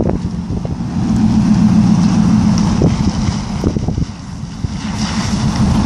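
A vehicle engine running with a steady low hum, under heavy wind rumble on the microphone.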